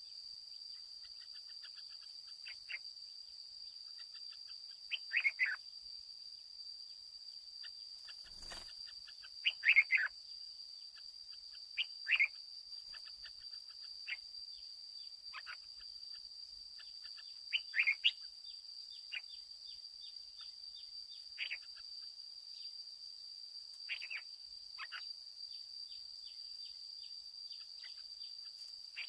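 Red-whiskered bulbul singing short, bright phrases every few seconds, with fainter chips in between, over a steady high insect drone. There is a single soft knock about a third of the way in.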